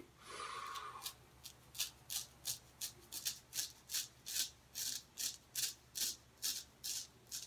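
Straight razor scraping beard stubble through shaving lather in short, quick strokes, about three a second.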